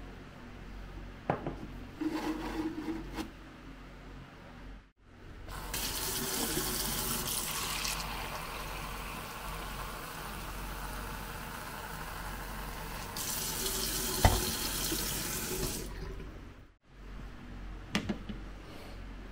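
Water running from a tap into a container for about ten seconds, starting about five seconds in and stopping abruptly a few seconds before the end. A few knocks and clicks come before and after it.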